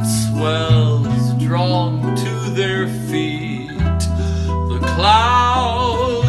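A man singing over strummed ukuleles and a bass guitar, holding a long wavering note near the end. The bass steps down to a lower note about four seconds in.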